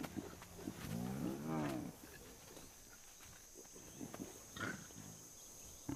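A lion's single drawn-out vocal call, rising and then falling in pitch, about a second long near the start, followed by a few faint short sounds.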